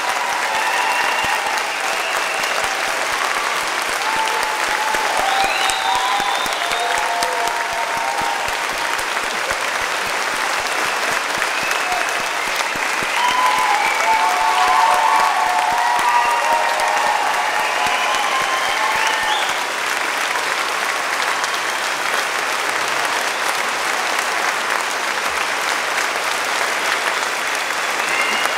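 A large audience applauding in a long ovation, the clapping steady throughout, with voices rising above it now and then.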